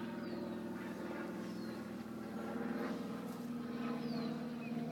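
Steady engine drone, low and even, growing a little stronger about halfway through, with a few short falling bird chirps over it.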